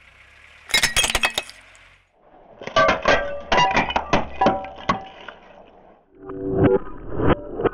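Ceramic bowl cracking and shattering under a car tyre: a quick run of sharp cracks about a second in, then two longer stretches of crunching with the shards clinking and ringing.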